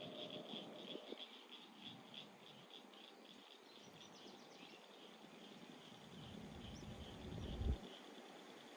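Faint chorus of insects calling in a steady high-pitched pulse, about four a second, thinning out toward the middle. Near the end a low rumble swells and peaks, then drops away.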